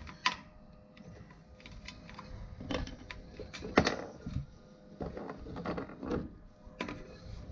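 3D-printed plastic mast gate piece being pressed and snapped into a metal mast's sail track: a series of scattered plastic clicks and scrapes, the loudest a sharp click just before four seconds in.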